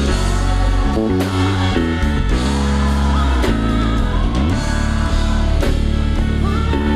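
Live band music: bass and drum kit with keyboard and a singing voice over them, loud and steady.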